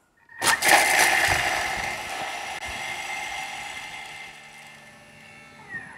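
Thermomix food processor's motor and blade spinning at speed 7 for five seconds, chopping garlic, coriander and parsley in the steel bowl. It starts loud about a third of a second in, grows steadily quieter, and winds down with a falling whine near the end.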